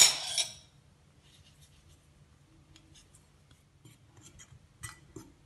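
Fingers mixing salt into flour in a ceramic bowl: faint, scattered scratching and rubbing with a few light ticks, after a short louder noise at the very start.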